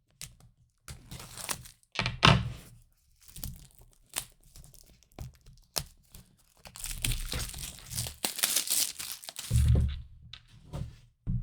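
Packaging of a boxed phone being opened by hand: plastic film crinkling and tearing, with knocks and thunks against the cardboard box. A longer stretch of tearing and crinkling runs from about seven to nine and a half seconds in.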